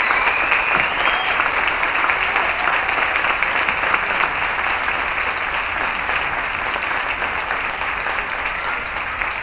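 Theatre audience applauding at the end of a dance number, a dense patter of clapping that slowly dies down.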